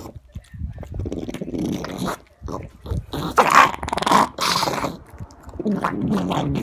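A pug sniffing and snuffling at a piece of broccoli on the floor, with several loud breathy bursts in the middle and a low growling sound near the end.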